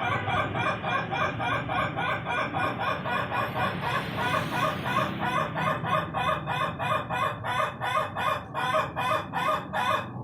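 Ayam ketawa (laughing chicken) rooster giving its long laughing crow: a rapid run of repeated syllables, about three to four a second, that stops abruptly near the end.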